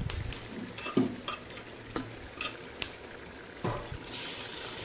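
Wooden spatula stirring raw chicken pieces into fried onions and tomatoes in hot oil in a metal pot, with scattered knocks of the spatula against the pot. About four seconds in, a frying sizzle grows louder as the chicken starts to cook.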